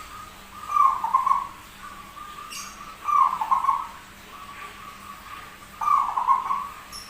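Zebra dove (perkutut) cooing, three phrases about two and a half seconds apart. The voice is one its keepers call unusual.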